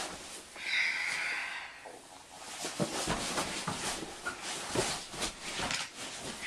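Bedding, pillows and blankets rustling with soft bumps and scuffs as a child crawls onto them and lies down, with a brief hissing sound about a second in.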